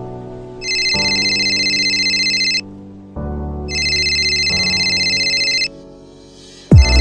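Telephone ringtone trilling twice, each ring about two seconds long, over soft background music. Near the end a loud booming drop hits and beat-heavy electronic music starts.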